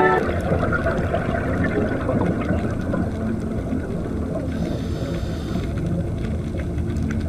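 Underwater ambience as heard by a diver's camera: a steady low rumble of moving water with faint scattered clicks and crackles, and a brief hiss about four and a half seconds in.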